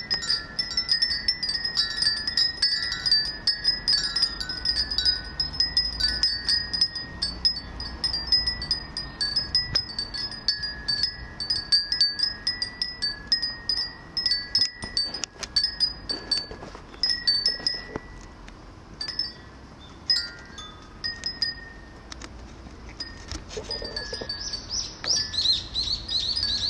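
Many Japanese glass wind chimes (fūrin) tinkling, a dense run of overlapping rings for the first half, thinning to scattered rings after about sixteen seconds, with a brief flurry near the end.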